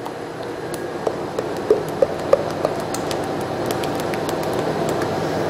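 A few light clinks and taps of utensils against a stainless steel mixing bowl, about a second in, then a spatula stirring hot cream into chocolate for a ganache, over a steady background hum.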